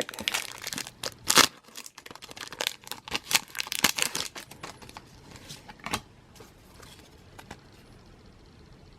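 Foil Pokémon booster pack wrapper being torn open and crinkled: a run of sharp crackles and rips that thins out to a few faint crinkles after about six seconds.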